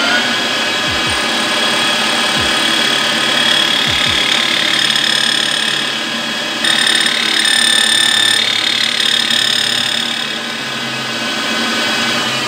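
Metal lathe running with a small abrasive grinding wheel spinning in its chuck: a steady high whine. Past the halfway point it turns louder and harsher for about a second and a half, as the wheel grinds the second flute of a two-flute end mill.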